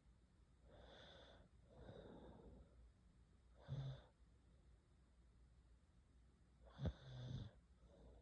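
A sleeping girl breathing faintly, with two short snores: one about four seconds in and another near the end that opens with a sharp snort.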